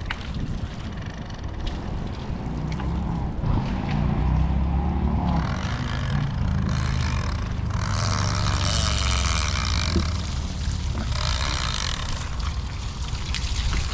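A motorboat engine runs steadily with a low hum. Three stretches of rushing water noise come and go over it.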